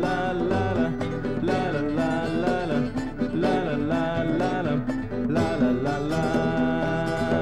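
Music from an early-1970s acetate demo recording: a song with plucked strings and a melody line that bends in pitch, running on without a break.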